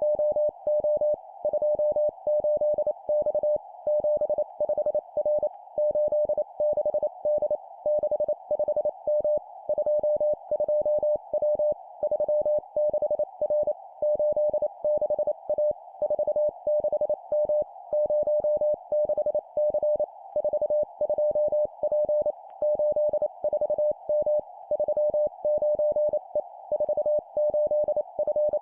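Morse code (CW) sent at 25 words per minute as one steady mid-pitched tone keyed rapidly on and off, in three-character groups of two digits and a letter. A steady narrow band of hiss sits around the tone.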